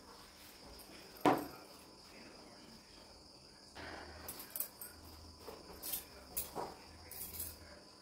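Steady high-pitched chirring of crickets. One sharp knock about a second in and a run of softer knocks and clicks in the second half come from someone shifting position on a yoga mat.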